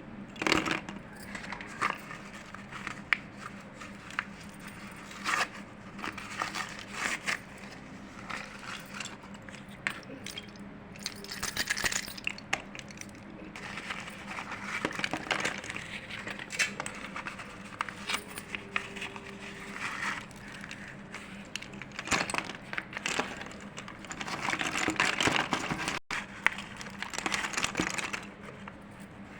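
Slate pencils being crumbled: irregular sharp snaps and longer gritty crunching stretches as the brittle slate breaks into pieces.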